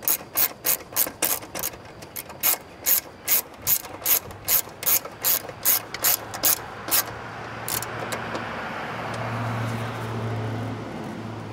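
Hand ratchet wrench clicking at a steady pace, about two to three clicks a second, as a bolt is run in. The clicking stops about eight seconds in, and a steady low hum with a rushing noise takes over.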